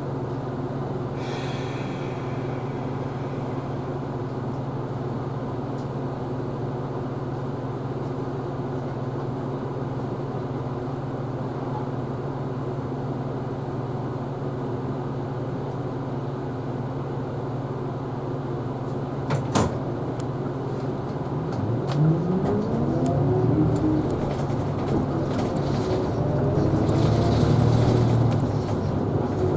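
Isuzu Erga Hybrid city bus with a steady low hum at first, a single sharp knock a little past two-thirds through, then a rising whine as the bus accelerates, its pitch climbing twice near the end.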